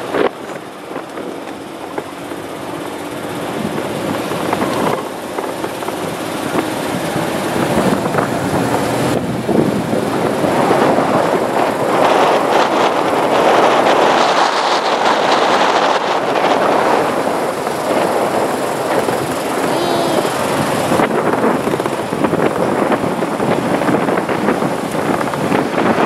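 Wind rushing over the microphone together with the engine and road noise of a moving vehicle, building over the first dozen seconds and staying loud.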